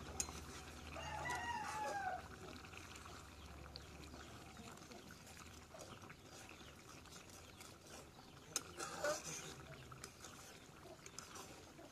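A rooster crowing once about a second in: a single curving call lasting about a second. Light clicks and knocks are scattered through the rest.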